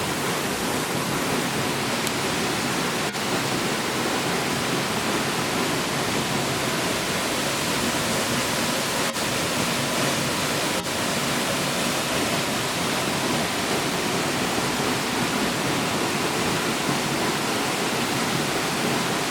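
Steady rushing of a waterfall, falling water close by.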